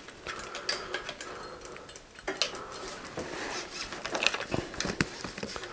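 Scattered light clicks, taps and rustles of hands working a bicycle's loosened brake and shift cables and their housing while lubing them.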